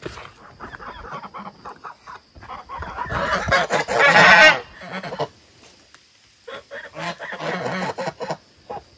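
Toulouse geese honking: a loud burst of honking from about two and a half to four and a half seconds in, then another, softer bout of calls near the end. Softer bird calls come before the first burst.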